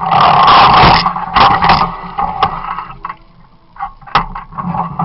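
Hydraulic demolition combi shear crushing reinforced concrete: loud, dense cracking and grinding over the excavator's running engine and hydraulics. The crushing dies away about three seconds in, and one sharp crack follows just after four seconds.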